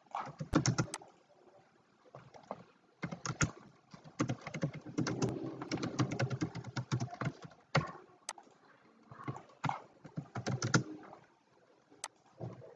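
Typing on a computer keyboard: several bursts of key clicks with short pauses between them, the longest and densest burst in the middle.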